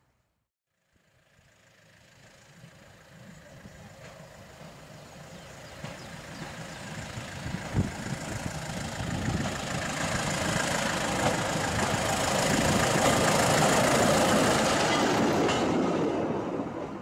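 Klv 51 light diesel rail motor car (SKL) approaching and passing: the engine and the wheels on the rails grow steadily louder from about a second in, peak about three-quarters of the way through, then fade as it goes by.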